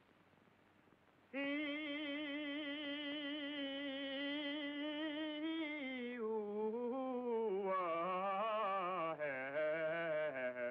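A man's voice singing in mock-operatic style, with no words. After a brief hush he holds one long high note with a wide vibrato for about five seconds, then the pitch drops and wanders through lower, wavering phrases.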